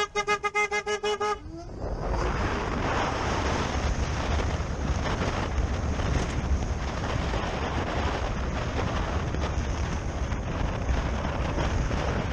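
A vehicle horn sounding in a quick string of short beeps, about five a second, for the first second and a half. Then steady wind rush on the microphone and road and traffic noise as the electric motorcycle rides between lanes of freeway traffic.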